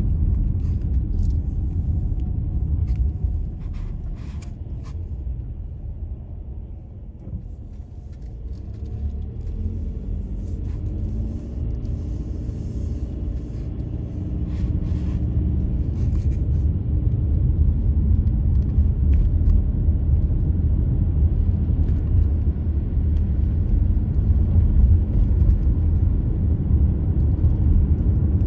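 Low, steady rumble of a car driving on a city street, the road and engine noise heard from the moving car. It eases off for a few seconds as the car slows through a turn, then builds again as the car picks up speed along a straight road.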